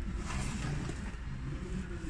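Fiat Ducato van's engine idling steadily, running normally again after a new timing belt kit and water pump.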